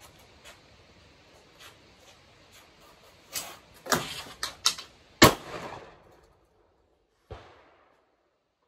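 Beretta 1301 Tactical 12-gauge semi-automatic shotgun fired as fast as possible, a rapid string of about five shots in two seconds. The sound then cuts off suddenly, and a single short knock follows.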